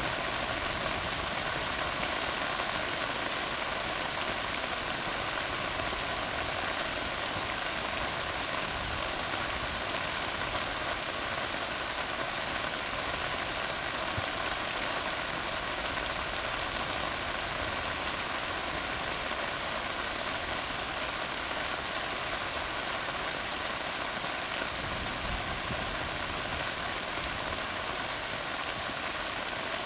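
Steady rain falling on a tar road: an even hiss of rain with scattered ticks of individual drops.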